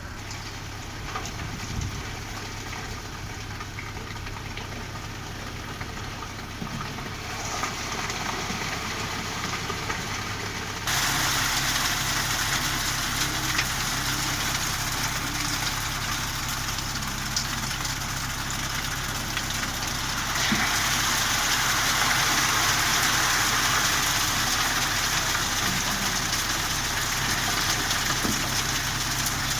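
An engine running steadily at idle, with a broad rushing noise over it that jumps louder about eleven seconds in and again about twenty seconds in.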